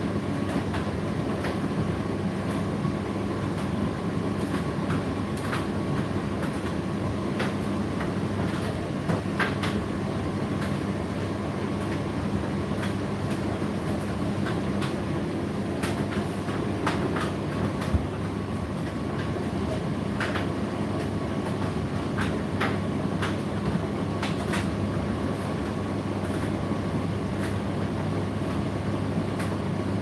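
Indesit IDC8T3 condenser tumble dryer running mid-cycle: a steady hum of the motor and fan with the drum turning, and scattered light clicks through it.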